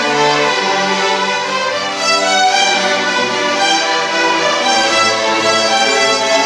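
Youth orchestra playing, its violin section bowing sustained notes in a steady, full passage with the pitches shifting every half second or so.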